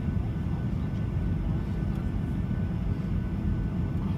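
Jet engines of a Boeing 737-800 running, a steady low rumble with a faint high whine on top.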